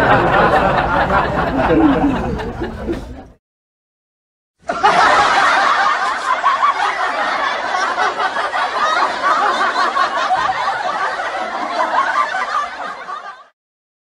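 Studio audience laughter, a canned laugh track. One wave of crowd laughter fades out about three seconds in, and after a short gap a second, longer stretch of audience laughter plays and stops near the end.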